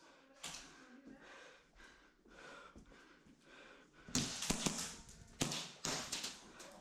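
A series of sharp knocks and taps, loudest in two short clusters about four seconds and five and a half seconds in.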